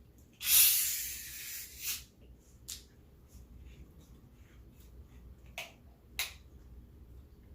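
Close-miked eating and handling sounds: a hissing rustle about a second and a half long near the start, then a few sharp mouth clicks.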